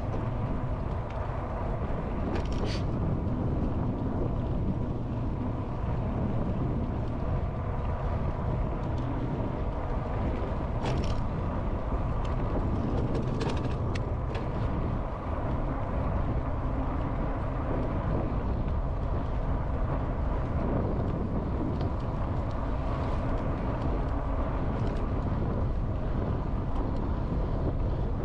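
Wind rumbling on a GoPro microphone while riding an e-bike, with a faint steady whine and a few short clicks or rattles.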